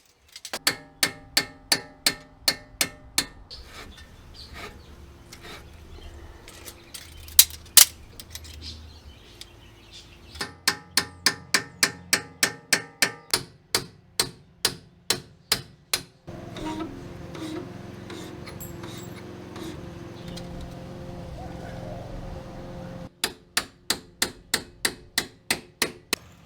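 Hammer blows on metal suspension parts, in steady runs of about two to three strikes a second with a metallic ring, broken by a pause and a stretch of steady hum before a last run of strikes near the end.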